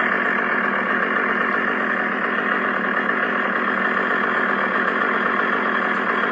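Electronic chainsaw prop replica playing a recorded chainsaw idle through its built-in speaker: a steady, really loud engine sound.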